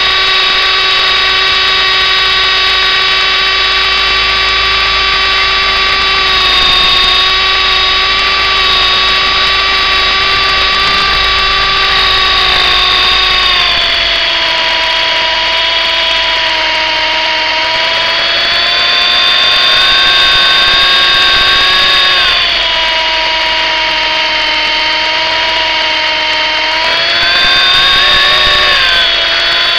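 MJX F45 single-rotor RC helicopter whining steadily in flight, heard from the camera on board. The pitch steps down about halfway through, then rises and falls a few times as the throttle changes.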